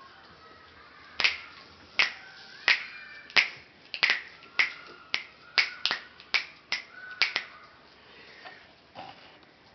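A string of about a dozen sharp clicks, one every half second or so, coming closer together in the middle, then stopping, with one last click near the end.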